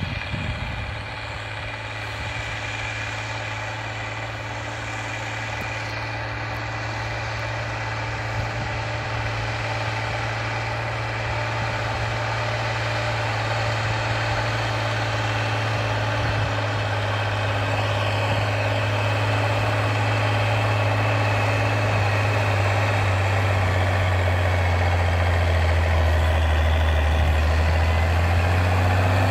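IMT 5136 Turbo tractor's diesel engine running steadily under load while pulling a disc harrow. It grows steadily louder as the tractor comes closer, with a deeper hum coming in near the end.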